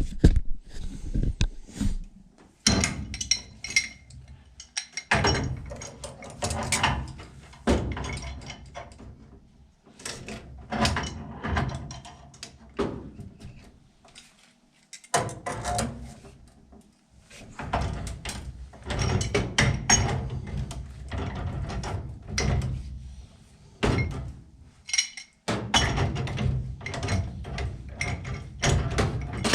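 Irregular knocking, clunking and rattling of hard objects being handled, with a few heavier thumps and short pauses between bursts.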